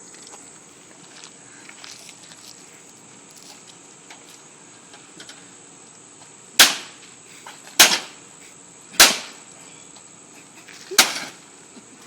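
A metal pipe striking the cage of an air conditioning unit: four loud blows, the first about six and a half seconds in, the next three about a second apart and then two seconds apart.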